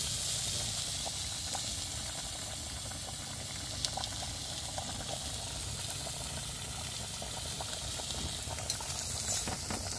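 A pot of rice boiling hard and frothing on a gas stove, a steady bubbling hiss, with tilapia sizzling on the grill plate beside it.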